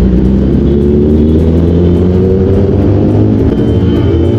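Kawasaki ZX-10R superbike's inline-four engine running as the bike slows from about 79 to 38 km/h, heard from the rider's seat.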